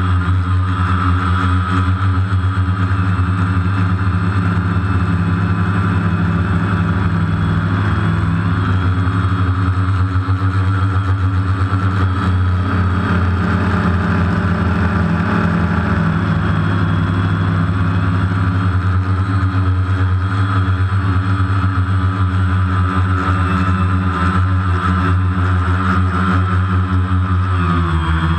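Multicopter's electric motors and propellers heard from its onboard camera: a loud, steady buzzing drone with small rises and falls in pitch as it flies.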